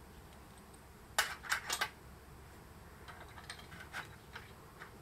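Small metal parts clinking and clicking as a screw, self-locking nut and bracket are fitted by hand to an aluminium solar-panel mounting rail. A quick run of three or four sharp clinks comes about a second in, followed by lighter scattered clicks.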